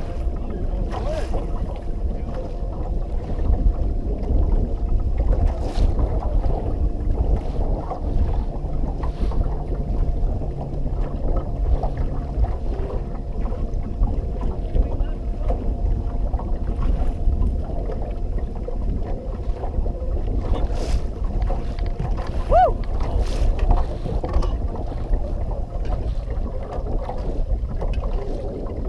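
Wind buffeting the microphone on a small fishing boat, over a steady motor hum.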